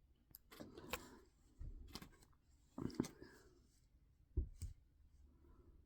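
Small plastic building-set pieces being handled and fitted. There are about five short bursts of clicking and handling noise a second or so apart.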